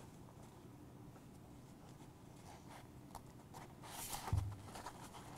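Handling noise from a nylon pouch as shock cord is threaded through its barrel locks: faint ticks and fabric rustling, with one dull thump about four seconds in.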